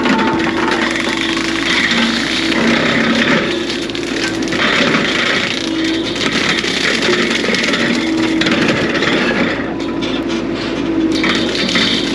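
Brush cutter head on a Bobcat E42 mini excavator shredding brush and small trees. A dense, steady crackling and crushing of wood runs over the machine's engine.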